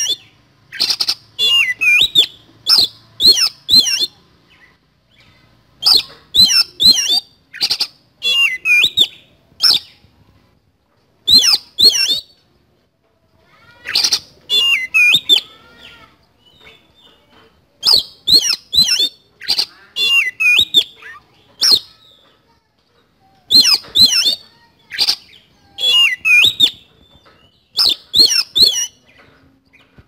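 Caged male Oriental magpie-robin (kacer) singing loudly in sharp, high phrases of a few quick gliding notes each, with short pauses between phrases: the full, harsh-noted song that keepers call gacor with isian kasar.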